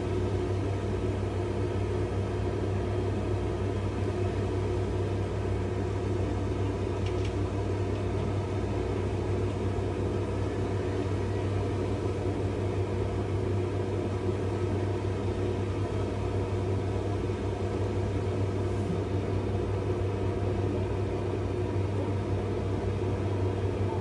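Steady, even drone of heavy machinery: a strong low hum with several steady tones above it, unchanging throughout.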